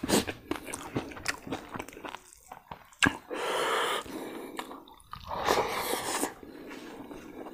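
Close-up mouth sounds of a person chewing crispy fried pork: repeated crunches and wet chewing, with two longer hissy stretches about three and five and a half seconds in.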